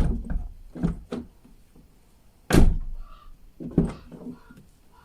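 Lada Vesta car door being swung and shut, with two loud thuds about two and a half seconds apart, the second the loudest, and smaller knocks and clicks between them, as the freshly lubricated door hinges are tested for squeaking.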